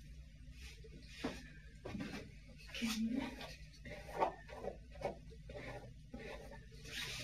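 Hair being shaken out by hand and brushed through with a flat paddle brush: a run of about ten short, irregular swishing strokes.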